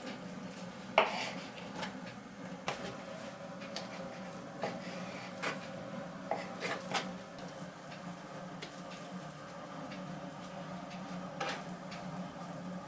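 Scattered clinks and knocks of dishes and cutlery, about a dozen, the sharpest about a second in, over a steady low hum.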